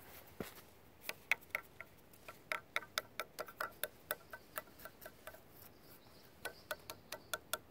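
Fingers tapping on the stones of a hollow stacked-stone wall: a quick series of light taps, about four a second, each stone giving a short ringing tone, with a brief pause about two-thirds through.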